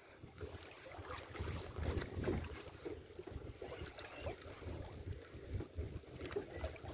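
Wind rumbling on the microphone in uneven gusts, with a faint noisy hiss over it.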